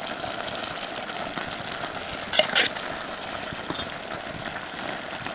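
Steamed rice being ladled into a steel pot of simmering chicken gravy over a wood fire, with a low steady hiss and two quick clinks of the metal ladle against the pot about two and a half seconds in.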